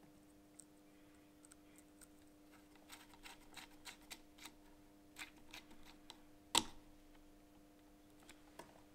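Faint small clicks and scratches of a small screwdriver turning in a sound decoder's screw terminals as thin wires are clamped in. One sharper click comes about six and a half seconds in, over a faint steady hum.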